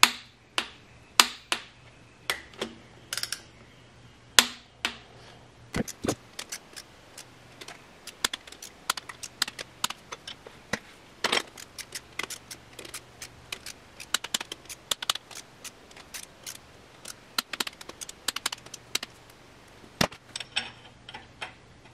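Sharp, irregular metallic clicks and clinks from a ratcheting torque wrench and hand tools working the connecting-rod bolts of an engine block, a few at first and coming thick and fast through the middle and later part, over a faint steady hum.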